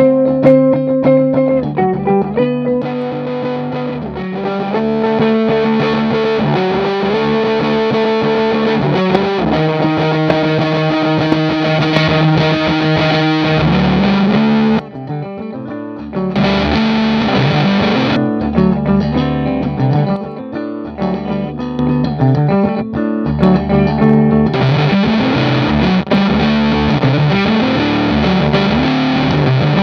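Electric guitar, a Gibson SG Custom through a Stone Deaf PDF2 fuzz pedal into a Marshall 1987 reissue head, playing distorted riffs. The playing briefly drops away about fifteen seconds in.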